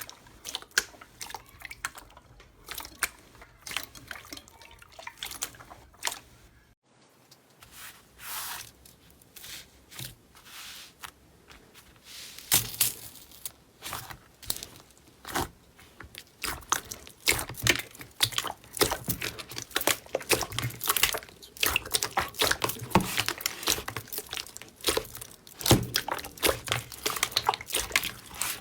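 Slime being squeezed and stretched by hand, making wet, sticky clicking and crackling pops. The pops come denser and louder in the second half, after a brief break about seven seconds in.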